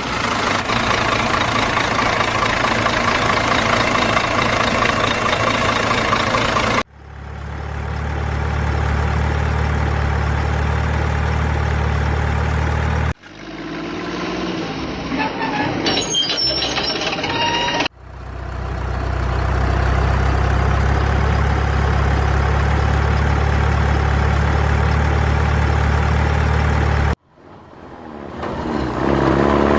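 Heavy truck engine sounds in several separate segments joined by abrupt cuts. Twice the engine holds a steady low drone for several seconds. Near the end its pitch rises as it revs.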